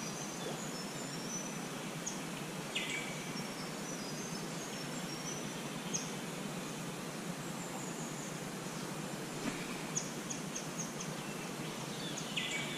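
Steady rush of a shallow creek flowing over its bed, with scattered high bird chirps over it and a quick run of short chirps about ten seconds in.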